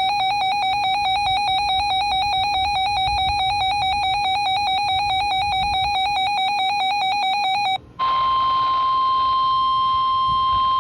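Weather alert radio sounding an alert: a rapidly warbling electronic alarm tone for about eight seconds, then a brief break and the steady single-pitched NOAA Weather Radio 1050 Hz warning alarm tone, which signals that a warning is about to be broadcast (here a severe thunderstorm warning).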